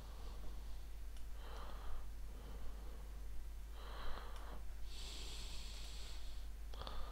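A person breathing close to the microphone, several soft breaths with a longer hissing exhale about five seconds in, over a steady low mains hum, with a few faint clicks.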